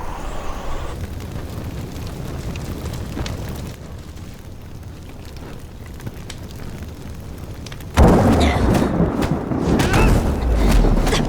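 Blizzard wind blowing steadily in an animated drama's soundtrack. About eight seconds in it cuts to a much louder deep rumble with sharp crackles.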